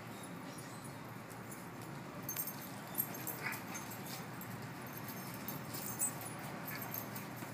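Dogs playing, with a short high-pitched whine from a dog about three and a half seconds in and a fainter one about six seconds in, over a steady background hiss and light clicks.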